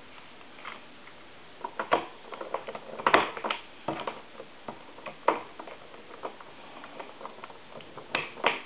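Irregular light clicks and rattles of telephone cords and plastic modular plugs being handled, unplugged and plugged in to move the phone's line from the analyzer to a regular phone line.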